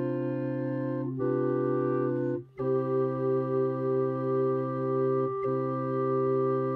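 Organ music: slow, sustained chords over a steady low held note. The chord shifts a few times, with a brief break about two and a half seconds in.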